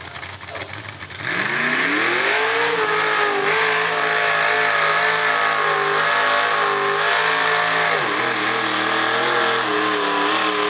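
A 388 cubic-inch small-block Chevy V8 in a mud truck revving up sharply about a second in and held at high revs with a wavering pitch, dropping briefly near the end and then revving again.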